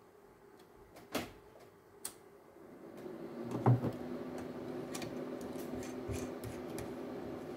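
Two sharp clicks as the linear amplifier's reset button is pressed, then a thump and the scrape of a coax connector being fitted back onto the wattmeter. A steady hum comes up about three seconds in and keeps on.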